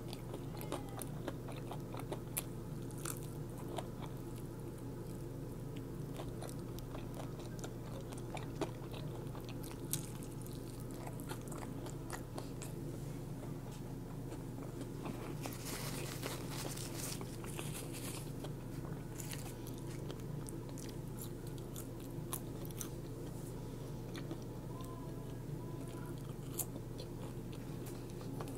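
Close-miked eating of fast food: crisp bites and crunching with wet chewing, denser crunching about halfway through, over a steady low hum.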